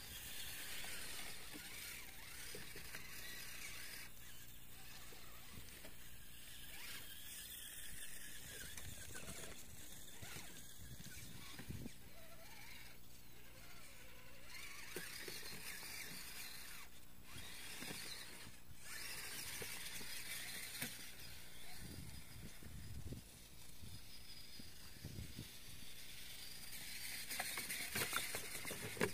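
Small electric motor and gears of a radio-controlled scale rock crawler, whining faintly and steadily as it crawls over rocks, with a few light knocks.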